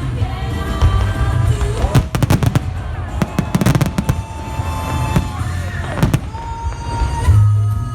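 Fireworks going off in rapid volleys of sharp bangs over loud orchestral-style show music. The volleys fall mostly between about two and four seconds in, with another bang near six seconds.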